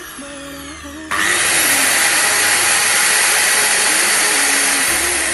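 Makita M5801B 185 mm circular saw running loud, starting suddenly about a second in and holding steady.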